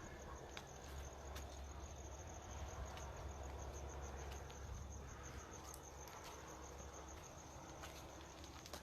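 Crickets chirping in a fast, steady, high pulsing trill over a faint low rumble.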